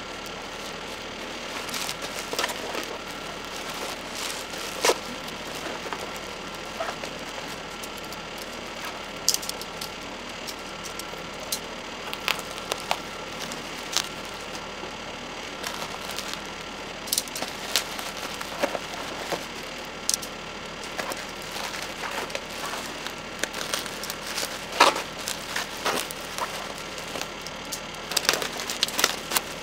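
Packaging being handled by hand: scattered crinkles, rustles and light taps over a steady background hiss, with a sharper tap late on and a quick run of crinkles near the end.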